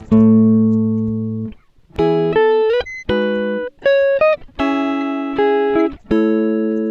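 Background music: guitar chords, each struck and left to ring and fade before the next.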